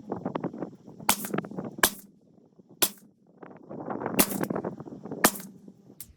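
Suppressed 5.56 short-barreled AR rifle firing a group of five shots, roughly a second apart with a longer pause in the middle, each a sharp crack.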